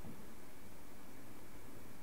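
Steady low hiss and hum inside a Keisei 3000 series commuter train car standing at a station, with no distinct events.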